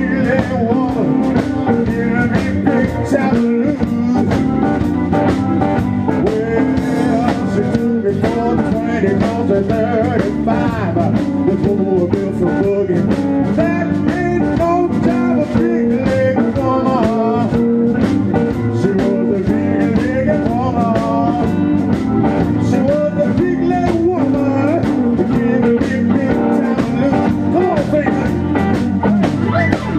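Live blues band playing loudly: electric guitar, bass guitar and drum kit.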